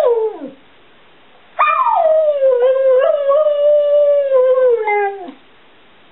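A Border Collie mix dog howling. The tail of one howl falls away right at the start. After a short pause comes a long howl of about three and a half seconds that slides down in pitch, holds level, and drops off at the end.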